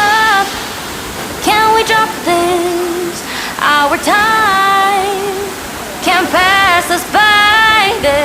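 A high female voice from the overlaid pop song sings short held and sliding notes with the beat dropped out, over the steady rush of a waterfall.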